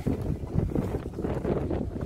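Wind buffeting the phone's microphone in uneven gusts, a low rumbling noise.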